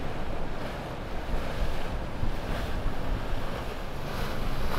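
Water rushing and splashing from the bow wave and wake of a passing Baglietto MV13 motor yacht, with wind buffeting the microphone as a steady low rumble.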